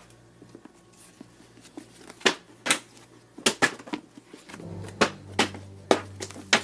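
Paperback books being pulled off a wooden bookshelf and thrown down: light sliding and rustling, then a string of short thuds and knocks from about two seconds in as they land.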